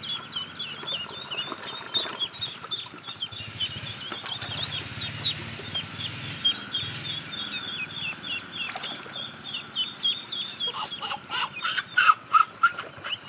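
Ducklings peeping rapidly and continuously, with water splashing in a plastic basin now and then. Toward the end, a toddler laughs in short repeated bursts, louder than the peeping.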